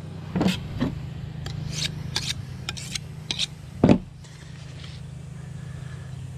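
A fillet knife and sharpening stone being handled on a plastic fish-cleaning table: a string of short scrapes and knocks, the loudest about four seconds in, over a steady low hum.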